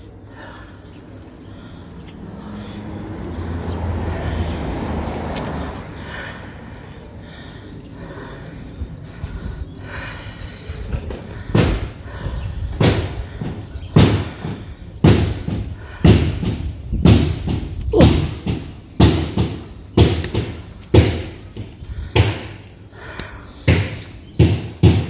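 A rush of noise swells and fades in the first few seconds. About eleven seconds in, a steady run of heavy thumps begins, roughly one a second, with lighter ones in between.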